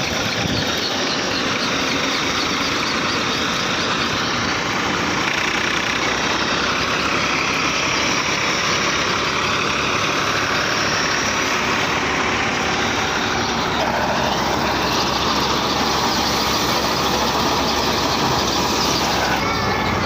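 Tractor-driven wheat thresher running steadily under load as wheat is fed through it: a loud, continuous mechanical din with the tractor engine running beneath.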